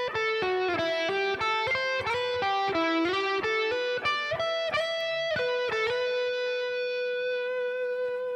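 Electric guitar playing a lick slowly, one note at a time, sliding between positions: B minor pentatonic, down to A minor pentatonic, up to an E minor triad arpeggio, then into E minor pentatonic. The lick ends about six seconds in on a single note held and left ringing.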